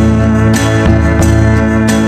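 Background instrumental music: plucked notes over held chords, with a new note struck every half second or so.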